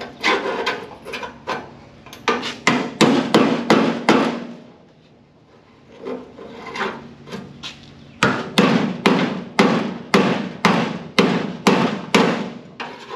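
Hand hammer striking a chisel against sheet steel, steady blows about two a second with a short pause near the middle, while the old outer wheelhouse flange is split away from the car body at its spot welds.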